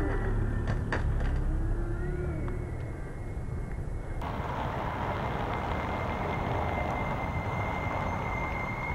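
City street traffic: a steady low rumble of passing vehicles, with a couple of sharp clicks about a second in. About four seconds in the background changes abruptly, and a thin steady high whine runs through the rest.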